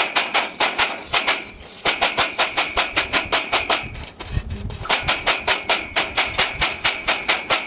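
Hammer striking steel in quick, even blows, about six a second, in three runs with short pauses between, each blow ringing metallically.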